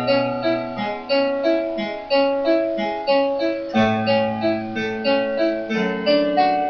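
Electronic keyboard playing a sonata: a steady stream of notes, about three a second, over lower notes held underneath.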